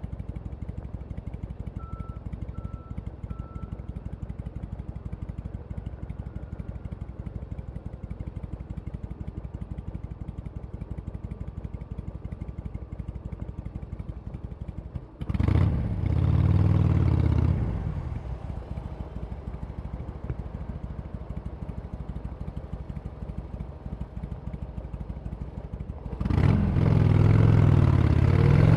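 Harley-Davidson Sportster Iron 883's V-twin with its stock exhaust idling with a steady low pulsing, then revved twice: a quick blip about halfway that rises and falls back to idle within about two seconds, and a longer rev near the end.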